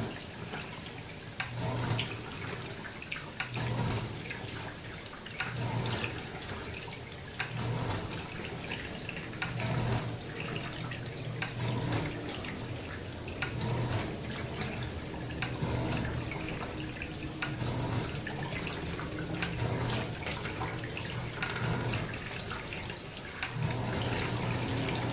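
Samsung dishwasher running a wash cycle: water spraying and splashing inside the tub over a low pump hum that swells about every two seconds. There is no grinding, the normal sound of the machine once a piece of plastic had been cleared out of it.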